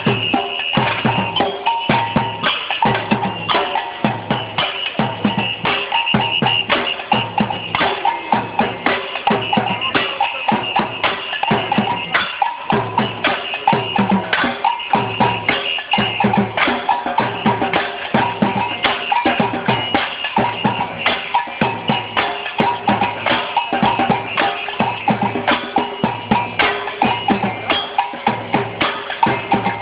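Batucada percussion band playing: a steady, fast samba rhythm of many drum strokes, with deep bass drums under sharper snare and block hits.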